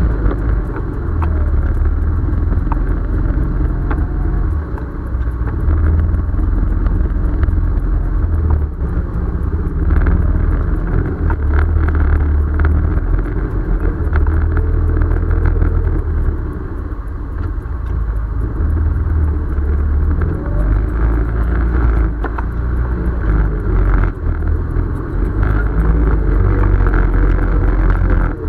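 ATV engine running steadily at trail speed over a rough dirt trail, its level rising and falling gently with the throttle, with a few knocks and rattles from bumps.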